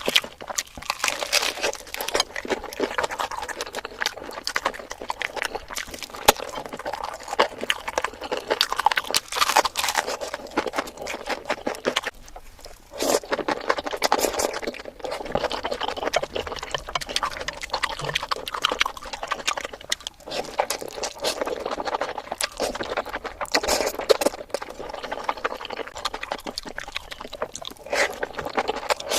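Mukbang eating sounds sped up to many times normal speed: a dense, rapid stream of chewing and mouth clicks, with a brief dip about twelve seconds in.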